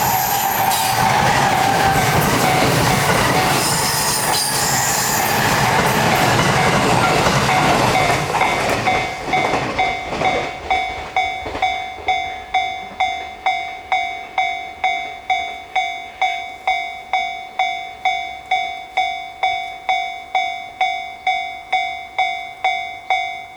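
JR East E531-series electric train going past a level crossing: loud running noise of wheels on rail for about the first nine seconds, with a few brief high squeals. As it fades, the crossing's electronic warning bell rings on alone at about two strikes a second.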